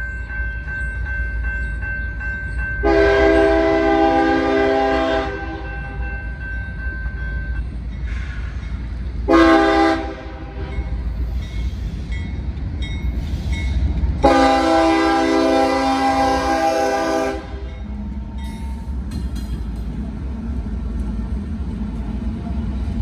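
Freight locomotive air horn sounding for a grade crossing: a long blast, a short one, then another long blast, several notes at once. Diesel locomotive engines rumble underneath, growing louder near the end as the train nears.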